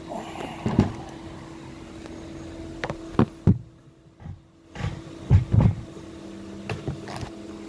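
Knocks and thumps of a heavy overlock sewing machine head being carried and set down onto its table, with loud double bumps about three seconds in and again about five and a half seconds in, over a steady low hum.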